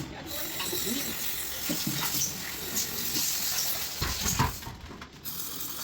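Aerosol cleaner hissing as it is sprayed onto a carbon-fouled throttle body, with scrubbing and handling noises; the spray stops briefly about five seconds in.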